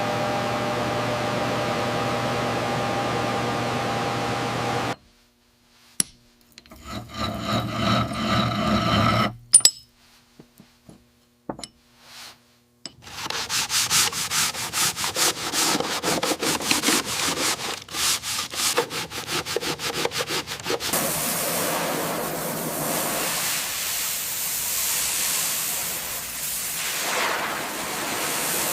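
A run of workshop sounds. A steady hum comes first, then short rubbing strokes and scattered clicks. From about halfway there is dense, rapid scraping, and near the end a steady abrasive hiss like sanding.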